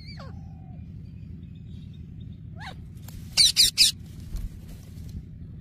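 Pet parrots calling: a short whistled note, a rising chirp, then three loud harsh shrieks in quick succession about three and a half seconds in, over a steady low hum.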